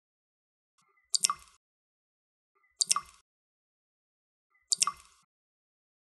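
Water dripping: single drops fall about every two seconds, three in all, each landing as two quick strikes close together, with silence between drops.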